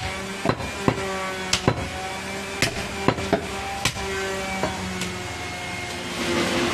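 Butcher's cleaver chopping through goat meat and bone. About a dozen sharp chops come at uneven intervals, two or three in quick succession at times.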